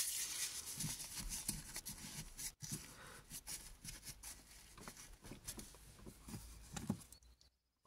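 Faint rustling and crinkling of paper towel as a hand tucks it around a fuel tank's gauge sender unit, with small scattered handling clicks.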